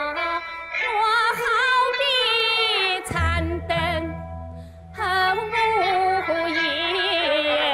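Huangmei opera singing: a high voice draws out long notes with a wavering pitch over instrumental accompaniment. There is a brief lull about four and a half seconds in.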